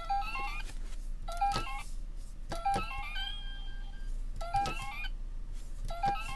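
A small electronic toy speaker plays a short rising jingle of beeps that keeps restarting about every one and a half seconds, each start marked by a click. The owner puts the faltering to weak batteries, sealed in the toy for seven years.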